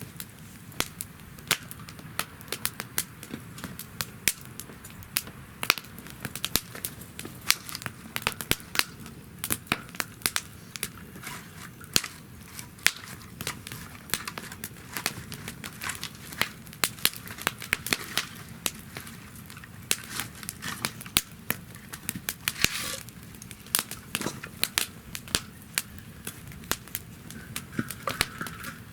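Wood fire burning in a fire-pit stand, crackling steadily with many sharp pops each second over a low steady background of flame noise, and a brief hiss about 23 seconds in.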